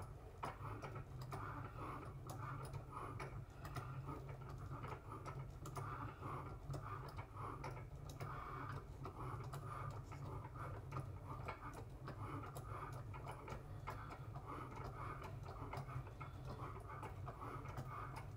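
Cricut Maker cutting machine at work: a faint motor hum from the moving carriage with a steady run of small ticks.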